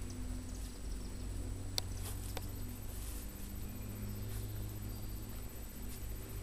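Faint rustling of Airedale puppies moving and nosing through low garden plants, with two sharp clicks about two seconds in, over a steady low hum.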